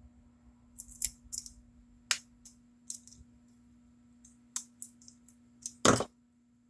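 Small clicks and scrapes of plastic and metal parts as the battery is worked out of an opened Braun Series 5 shaver, with one louder knock about six seconds in. A faint steady hum sits underneath.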